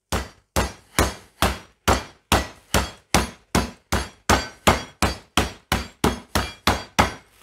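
Metal meat mallet pounding a slice of pork loin through a plastic freezer bag on a wooden cutting board: a steady run of sharp blows, a little over two a second, flattening the meat thin for schnitzel.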